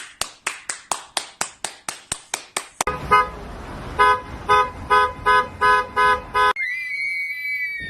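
Rhythmic hand clapping, about four claps a second. Nearly 3 s in it gives way to a run of short horn honks, about three a second, over a noisy background. About 6.5 s in a steady high whistle-like tone takes over and holds.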